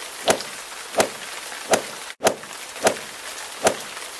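Sharp, evenly spaced clicks, about one every three-quarters of a second, over a steady hiss, with a brief dropout about two seconds in.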